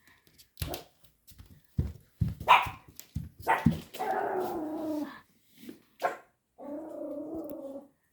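A frightened Pomeranian puppy barking at a toy tiger: a string of short, sharp barks, then two longer drawn-out growls about four and seven seconds in.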